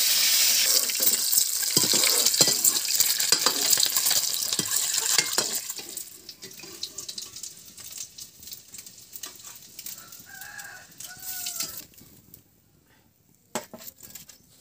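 Peeled boiled eggs frying in hot oil in an iron kadai, a loud sizzle with the ladle scraping and clinking against the pan; the sizzle dies down after about six seconds. Near the end the ladle clinks once against a steel plate as the fried eggs are lifted out.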